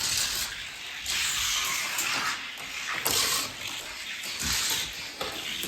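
A 50-gram diecast Corvette racing down a diecast car track: a rushing hiss of small wheels on the track that swells and eases several times as the car runs.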